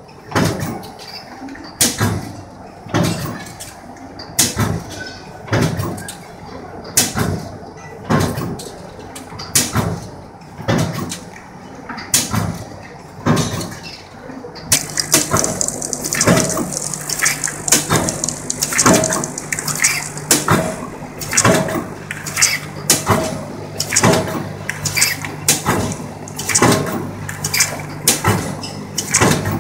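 Flat-plate blister packing machine running in its intermittent cycle: metallic clacks and knocks from the reciprocating blister forming, sealing and punching stations, about one stroke a second. About halfway through, a steady low hum and a high hiss come in under the strokes, and the strokes come a little faster.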